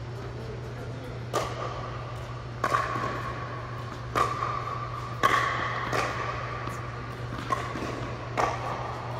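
A series of sharp knocks, about seven at uneven intervals, several followed by a brief ring at one pitch, over a steady low hum.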